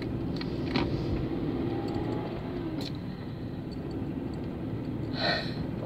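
Steady engine and road noise of a car being driven, heard from inside the cabin.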